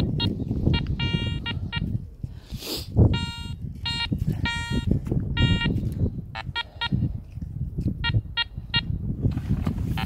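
Metal detector beeping in short bursts of one fixed pitch, some clipped, some held longer, in clusters as the coil is swept over buried metal in wet beach sand. Wind rumbles on the microphone underneath.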